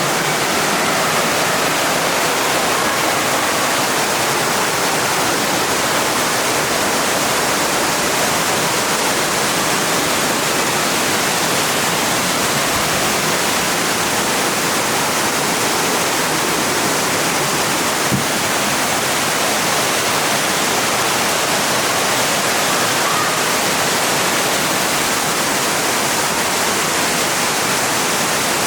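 Cascading waterfall rushing: a loud, steady roar of falling water close by, with one brief click about eighteen seconds in.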